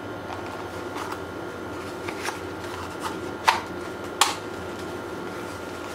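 Hands handling a foam RC plane fuselage while repositioning the ESC inside its equipment bay: rubbing and small knocks, with two sharp clicks about three and a half and four seconds in.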